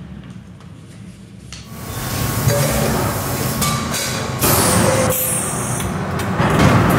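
Factory press line starting up loudly about a second and a half in: pneumatic hissing and metallic clanks as suction cups lift metal disc blanks off a stack to feed the press.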